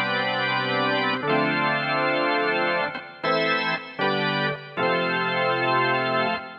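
Roland D-50 software synthesizer playing an organ-like preset: a series of held chords, each changing to the next after about half a second to a second and a half, with short breaks between some of them.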